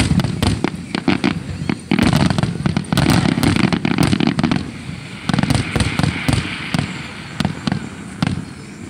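Fireworks display firing a rapid volley: many aerial shell bursts banging in quick, overlapping succession, thinning to scattered bangs after about five seconds.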